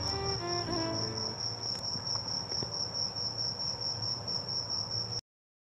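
A steady high-pitched insect trill with an even pulse, over faint background noise. It cuts off suddenly into silence near the end.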